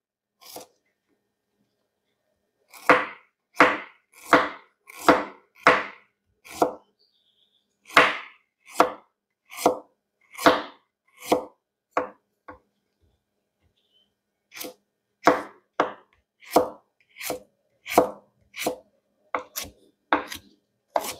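Kitchen knife chopping fresh ginger on a cutting board: single, evenly spaced strokes about one and a half a second, pausing twice.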